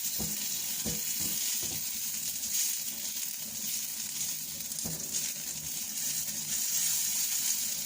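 Chopped shallots, garlic and chilies sizzling steadily in hot oil as they are sautéed, with a few short knocks of the pan being stirred.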